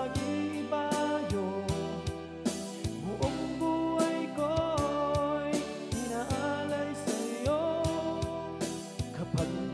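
A man singing a Tagalog song over a backing track with a steady drum beat.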